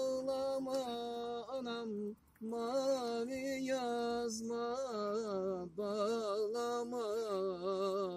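A man singing a Turkish folk song unaccompanied, in long held notes with ornamented, wavering turns, breaking briefly for breath about two seconds in and again near six seconds.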